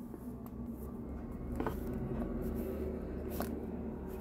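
Handling noise from a cellophane-wrapped perfume box: fingers rubbing and tapping on the plastic wrap, with two sharper clicks nearly two seconds apart, over a low rumble.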